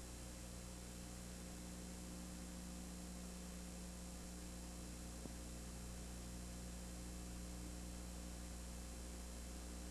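Steady electrical mains hum with an even hiss underneath and no game sound, with one faint click about halfway through.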